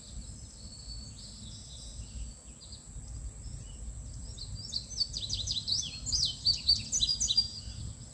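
Songbird chirping in quick, sliding notes, sparse at first and then fast and loud from about halfway through, over a steady high-pitched whine and low wind rumble.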